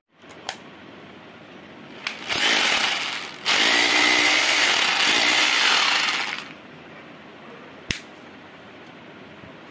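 Boray Z1A-BR-28 hammer drill run briefly with no load: one short burst of about a second, then a second run of about three seconds, each stopping abruptly. A few sharp clicks come before and after.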